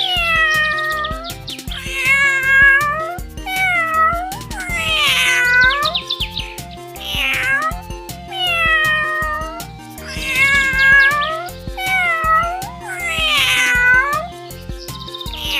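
Domestic cat meowing over and over, about ten drawn-out meows in a row, over a children's background music track.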